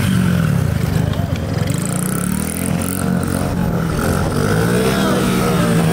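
Small mini dirt bike engine running and revving as the rider holds it in a wheelie, with crowd voices around it.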